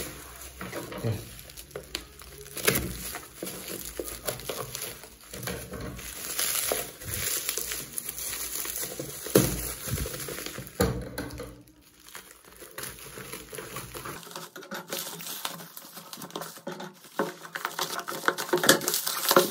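Bubble wrap crinkling and rustling as it is pulled and handled off a cardboard box, with many scattered sharp clicks. The sound drops off briefly about twelve seconds in, then picks up again.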